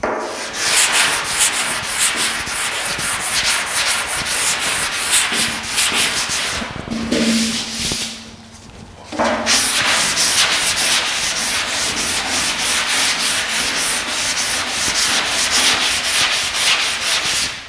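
Hand block sanding: 240-grit sandpaper on a sanding block rubbed in quick back-and-forth strokes over the primer on a steel truck fender, blocking it out to show up low spots. The strokes pause for about two seconds, about seven seconds in, then resume.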